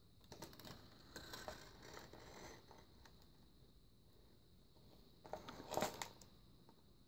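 Stiff paper pages and pop-up flaps of a pop-up book being turned and laid flat, paper rustling and sliding under the hand. It comes in two spells, one just after the start and a louder, shorter one near the end.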